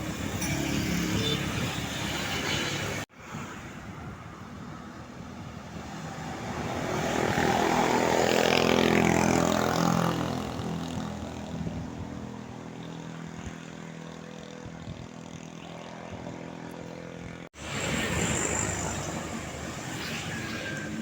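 A heavy road vehicle's engine passing close by, rising to a peak about nine seconds in and then fading away. The sound drops out abruptly twice, at about three seconds and again near the end.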